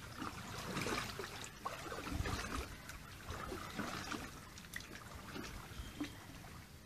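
Irregular water splashing and trickling from a kayak paddle dipping and stroking through shallow water beside a small PVC-pipe boat. The splashes are busiest in the first few seconds and ease off toward the end.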